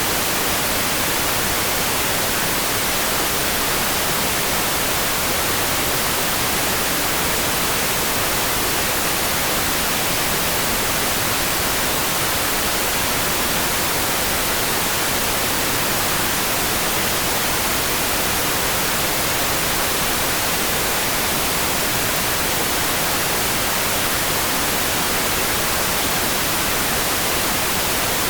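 Steady rain: an even, unbroken bright hiss with no separate drops, thunder or other sounds standing out.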